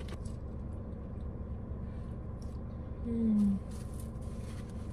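A woman's short closed-mouth "mmm" while eating fries, falling in pitch, about three seconds in, with faint chewing ticks, over a steady low hum in the car cabin.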